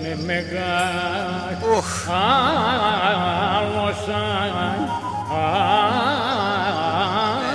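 A man singing a Tsakonian folk song in Greek, with a heavily ornamented, wavering melody over steady held accompaniment.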